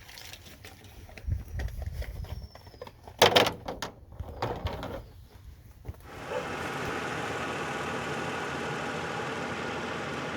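Scattered knocks and a low rumble, with one sharp bang about three seconds in; then, about six seconds in, a steady mechanical running noise starts abruptly and holds.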